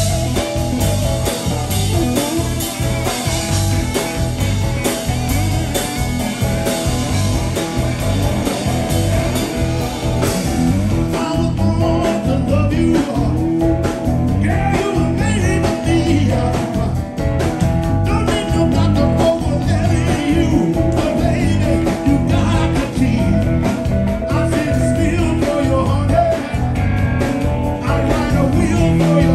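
Live blues band playing with electric guitar, bass guitar and drums; singing comes in about a third of the way through and carries on over the band.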